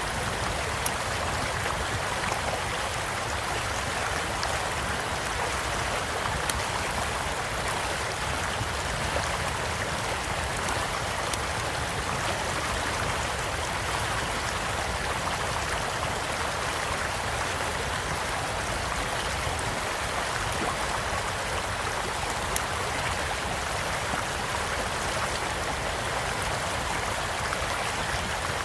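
A small stream flowing with a steady rush, and a campfire crackling now and then with a few sharp pops scattered through.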